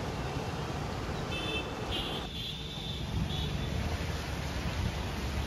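Road traffic passing on a wet road: a steady hiss of tyres with a low engine rumble, and a few short high-pitched tones between about one and three seconds in.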